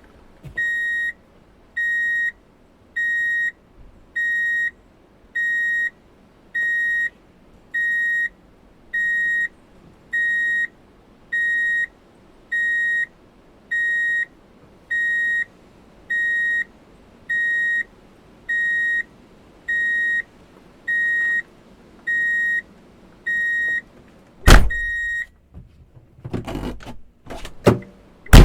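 A vehicle's reverse warning beeper sounding while in reverse gear: identical short, high beeps at a steady rate of about one every second and a quarter, some twenty in all. After the beeping stops comes a loud thump, then a few sharp clacks.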